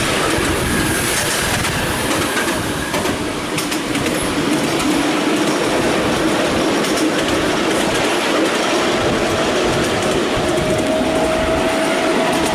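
Miniature railway train running along the track, heard from on board a passenger carriage: a steady rumble of wheels on the rails. A thin wheel squeal comes in near the end.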